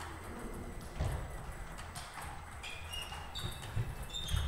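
Table tennis rally: the celluloid ball ticking off bats and table in quick strikes, with a few dull thumps and more ball clicks from other tables in play around the hall.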